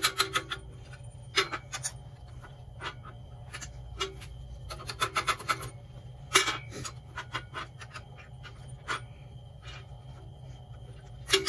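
Small hammer tapping a stainless-steel Oetiker ear clamp held on a bench vise, beating the crimped ear back flat so the single-use clamp can be reused. Quick runs of light metallic taps alternate with single strikes at irregular intervals, over a low steady hum.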